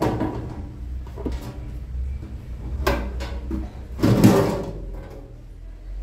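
Sheet-metal outer cover of a Philco microwave oven being handled and taken off: a few short clicks and knocks, then a louder scraping rattle about four seconds in as the cover slides free.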